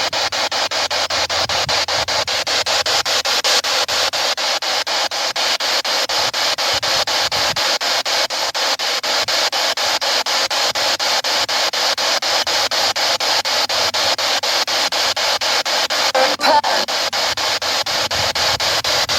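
Spirit box sweeping through radio frequencies: loud hissing static chopped into rapid, evenly spaced steps. About sixteen seconds in, a brief snatch of pitched radio sound breaks through the hiss.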